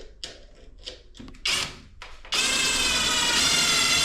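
Cordless drill driving a screw into a shower door's aluminum frame: a short burst about a second and a half in, then a steady run of the motor from a little past two seconds.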